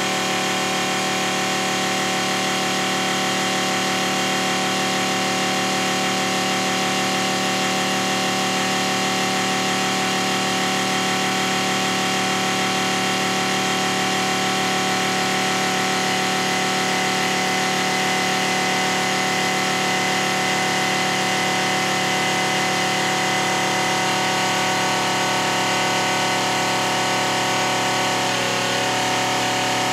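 The electric on-demand pump on a Reef Vacuum RV-20 running steadily under load, pushing filtered water from the barrel through the discharge hose back into the aquarium sump. It is a steady motor hum that holds one pitch.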